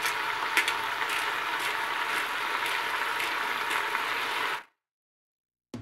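Chicken and onion sizzling in olive oil in a Moulinex Cookeo multicooker on its browning setting: a steady frying hiss with a few faint clicks. It cuts off suddenly to silence about four and a half seconds in.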